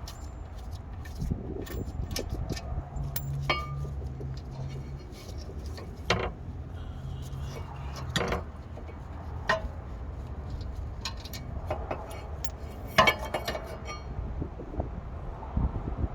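Scattered metallic clinks and knocks of brake caliper bracket parts and hand tools being handled, over a steady low rumble.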